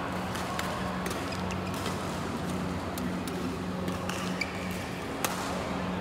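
Badminton rackets striking shuttlecocks in rallies on several courts: irregular sharp taps and pings, the loudest about five seconds in, over a steady low hum.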